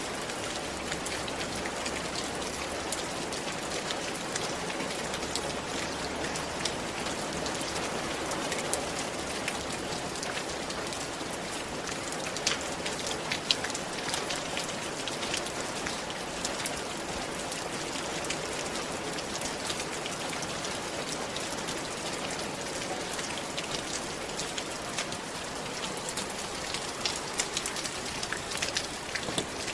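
Steady rain falling on a roof, an even hiss dotted with the sharp ticks of individual drops striking.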